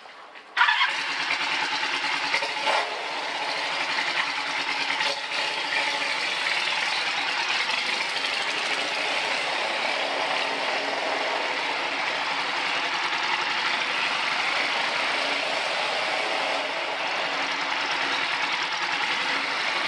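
Motorcycle engine starting about half a second in, then idling steadily.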